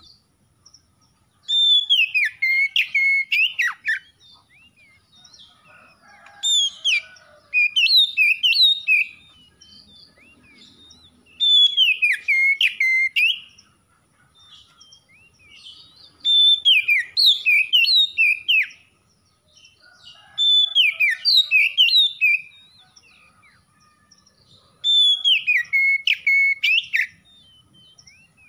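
Oriental magpie-robin singing in loud, repeated phrases of quick rising and falling whistled notes mixed with sharp clicks, each phrase about two seconds long, six phrases with short pauses between.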